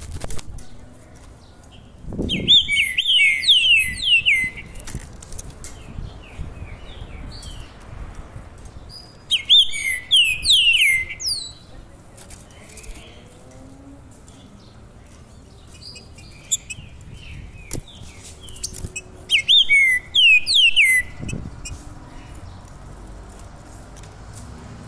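A caged songbird singing three bursts of quick, downward-slurred whistled notes, each lasting about two seconds, with a few low thumps between them.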